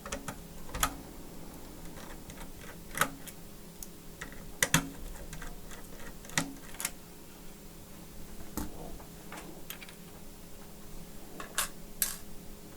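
Sharp clicks and light taps at irregular intervals, about ten of them, from a laptop being taken apart by hand, with a low steady hum underneath.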